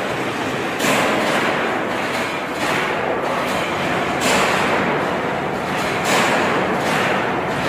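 CNC angle-bar punching, marking and shearing line running, with steady machine noise and a heavy press stroke roughly every two seconds as it works through angle bar.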